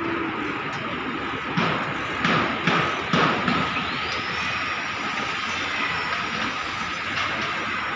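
Steady noise of an open steel-framing construction site above city traffic, with four sharp knocks in quick succession between about one and a half and three seconds in.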